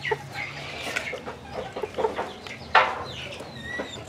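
Bantam chickens clucking with short, scattered calls, one of them louder a little under three seconds in.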